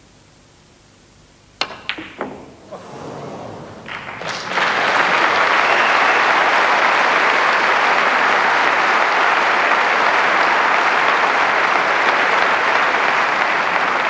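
Snooker cue striking the cue ball about one and a half seconds in, followed by a few sharp clicks of balls colliding. From about four and a half seconds in, an arena audience applauds loudly and steadily for the shot.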